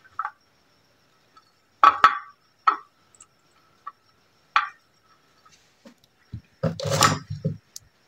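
Scattered small clicks and scrapes of hands handling wires and a plastic terminal connector on a ceiling fan's metal top plate, with a short voiced murmur about seven seconds in.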